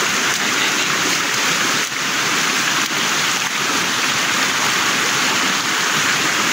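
River water rushing steadily: a loud, even hiss of flowing water.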